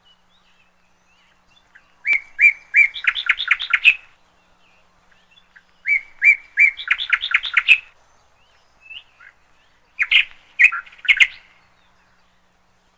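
A songbird singing three short phrases a few seconds apart, each a quick run of repeated chirping notes.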